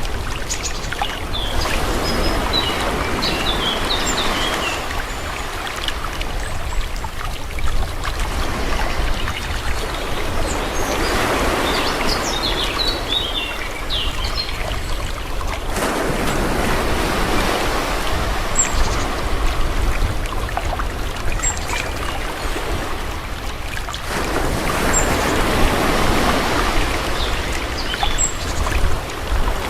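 Calm sea: small waves washing in and drawing back, swelling and fading every several seconds. Small birds chirp at times over the water, in bunches in the first few seconds and again about halfway.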